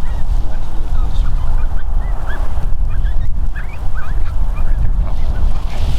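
Strong wind buffeting the microphone with a heavy low rumble. Many short, high calls, each a quick rise and fall, come scattered throughout.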